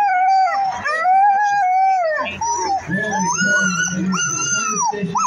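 Sled dogs in harness howling and yipping, eager to run at a race start: two long howls that rise and fall, then a string of shorter, higher howls from several dogs overlapping.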